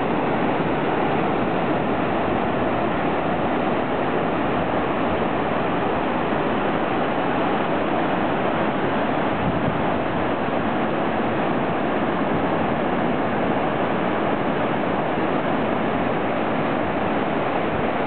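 Ocean surf: waves breaking and washing over the shallows in a steady, unbroken wash of noise.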